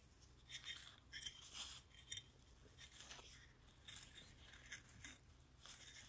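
A few faint, short scratchy strokes, irregularly spaced, as a mini Zippo lighter insert is rubbed against a green abrasive scouring pad.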